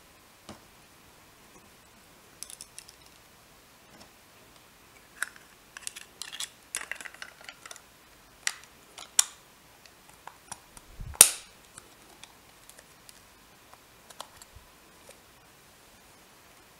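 Small hard plastic toy parts clicking and tapping as they are handled and fitted together, in irregular clusters, with one louder sharp click about eleven seconds in.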